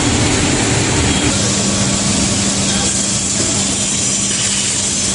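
Automatic powder coating line running: a steady, loud rush of air and machinery with a low hum that drops to a lower pitch about a second in.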